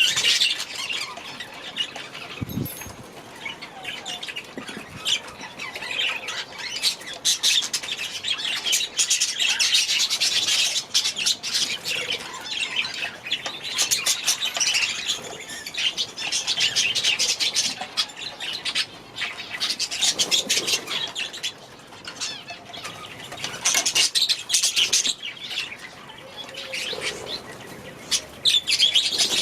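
A flock of budgerigars chattering and chirping continuously, many short calls overlapping, with wing flaps among them. A short low thud about two and a half seconds in.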